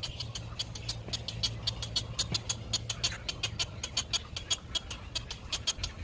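Great egret nestlings begging: a fast, slightly irregular series of short, high clicking calls, about six a second, over a low steady hum.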